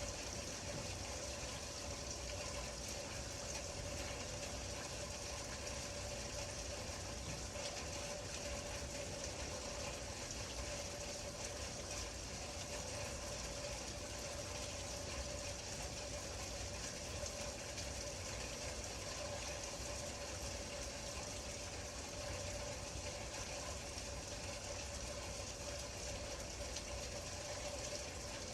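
Steady rain falling, an even unbroken hiss, with a faint steady hum underneath.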